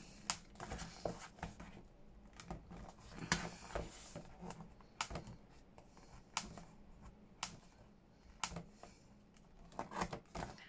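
Scattered small sharp clicks and paper rustling as a poke tool is worked under the binding thread in the spine of a hardback book, lifting the stitching out of the pages.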